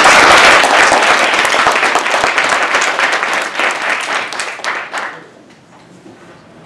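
Audience applauding, a dense run of many hands clapping that dies away about five seconds in.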